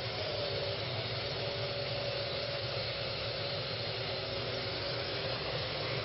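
Parrot AR.Drone quadcopter hovering, its four rotors giving a steady whir with a faint held tone.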